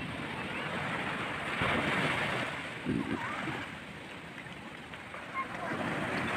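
Small waves washing onto a sandy beach at high tide, the surf swelling about two seconds in, easing off in the middle and building again near the end.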